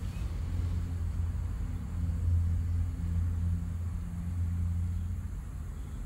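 A steady low engine rumble, a motor running at an even speed, with a fainter higher hum that comes and goes.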